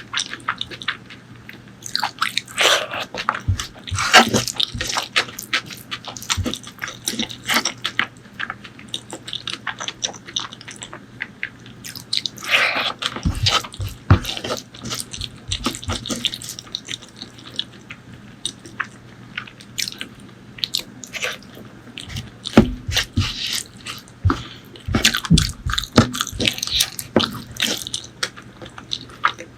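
Close-miked eating: wet, irregular chewing and lip-smacking of pork leg curry and rice, with short sharp clicks and squelches. A faint steady hum runs underneath.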